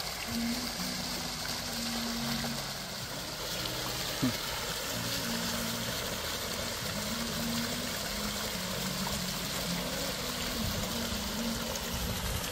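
Fountain water splashing steadily, with a domed bubbler and small jets falling back into a shallow pool. A single brief knock about four seconds in.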